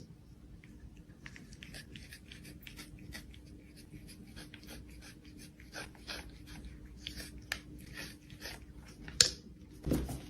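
Irregular light scratching and clicking over a faint steady hum, with one sharper click about nine seconds in.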